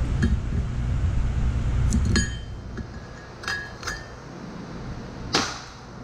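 Steel hand tools clinking against metal: ringing clinks about two, three and a half and four seconds in, then one sharp, louder clack near the end. A low rumble fills the first two seconds and stops.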